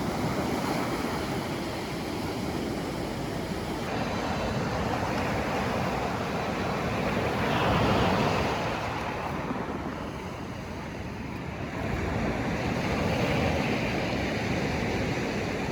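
Sea waves surging and washing onto the beach, with wind buffeting the microphone. The rush swells as a wave comes in about eight seconds in, and again about thirteen seconds in.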